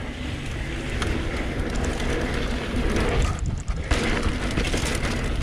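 Mountain bike riding down a dirt trail: a steady rush of tyre, rattle and wind noise, with a brief lull about three and a half seconds in.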